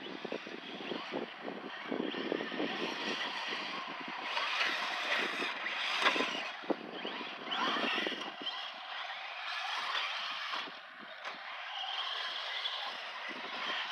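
Electric RC short-course trucks (Traxxas Slash) running on a dirt track, the motor whine rising and falling with the throttle over the noise of the tyres on loose dirt.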